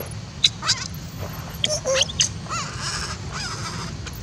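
Baby macaque crying: a string of short, high squeals, several of them rising and falling in pitch.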